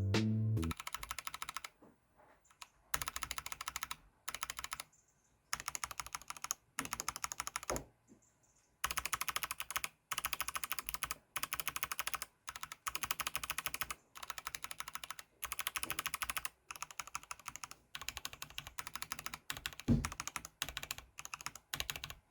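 Typing on an Epomaker EP84 mechanical keyboard with Gateron Yellow linear switches and double-shot PBT keycaps. The keys clack in quick runs of a second or two, with short pauses between them.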